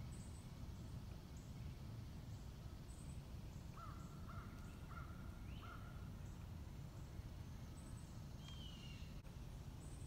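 Outdoor ambience of scattered bird calls over a steady low background rumble: faint high chirps repeating throughout, a run of four short calls about four seconds in, and a falling call near the end.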